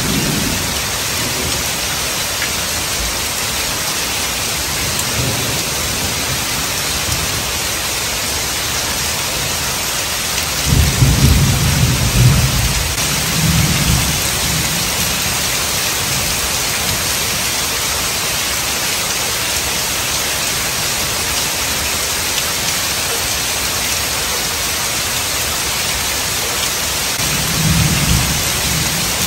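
Heavy rain falling steadily on wet pavement and puddles, a constant even hiss. Thunder rumbles through it: a loud roll about ten to fourteen seconds in and a lighter one near the end.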